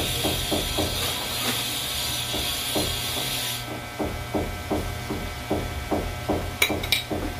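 Spoon tapping and clinking again and again as granules are scooped from a glass jar and sprinkled into a wok, quickening to about three taps a second in the second half. A sizzling hiss from the wok cuts off suddenly about three and a half seconds in.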